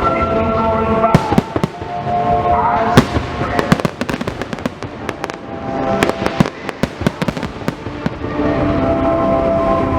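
Fireworks going off, a dense run of sharp bangs and crackles from about a second in until about eight seconds, over music that plays throughout with held tones.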